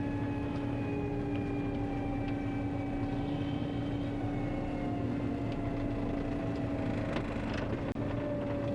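John Deere 9500 combine running steadily as it travels on the road. A constant hum sits under higher whines that slowly drop in pitch.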